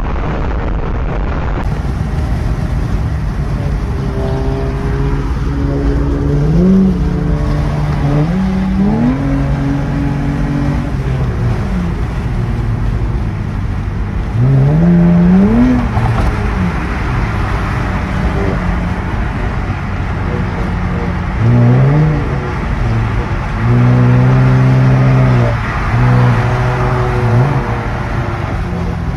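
Nissan Altima's engine heard from inside the cabin at highway speed, revving in several hard pulls over steady road and wind noise. Each pull climbs in pitch and then drops back.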